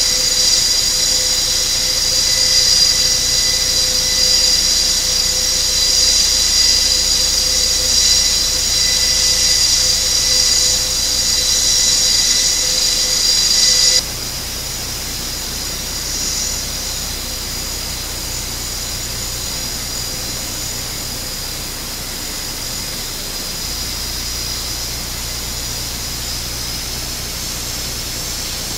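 Airbus A400M's Europrop TP400 turboprop engines running on the ground: a steady high-pitched turbine whine over a broad rush, noticeably quieter and more distant from about halfway on.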